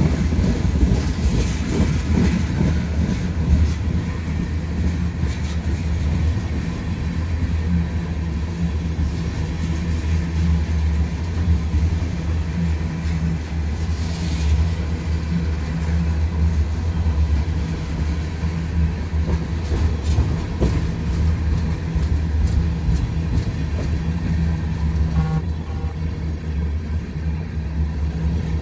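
Freight train of oil tank cars rolling past: a steady low rumble of wheels on rail.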